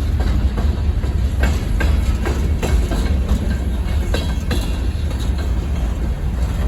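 Train rolling past with a steady low rumble and irregular clacks of wheels over rail joints.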